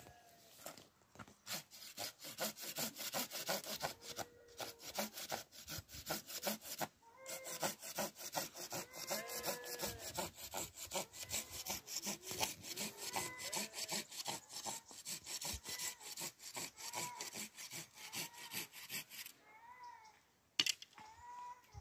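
Hand saw cutting through wood in quick, steady rasping strokes that stop near the end. Short animal calls, such as goats or other farm animals, sound over it.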